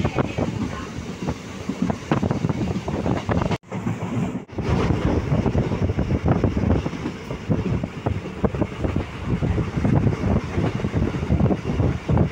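Express passenger train running at speed, heard from aboard: a steady rolling rumble with clickety-clack of the wheels over the rail joints. The sound cuts out briefly twice about four seconds in.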